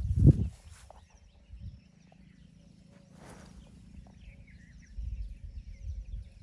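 Low, irregular rumbling of wind buffeting the microphone outdoors, loudest in a burst right at the start and again near the end, with faint short bird chirps in the background.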